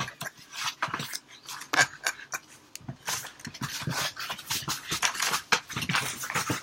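A dog chewing and tearing a piece of cardboard packaging: a fast, irregular run of crunches and rips.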